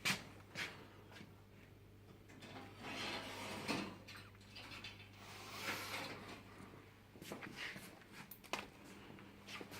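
Workshop handling noises from rack assembly: scattered clicks and knocks, with two longer scraping sounds about three and six seconds in, over a steady low hum.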